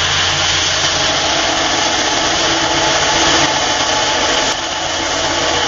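Burr King 960-200 belt grinder running at full speed, its coarse-grit belt grinding a 1095 steel knife blade held in a tapering jig against the platen: a steady grinding hiss over the motor hum, easing slightly about four and a half seconds in.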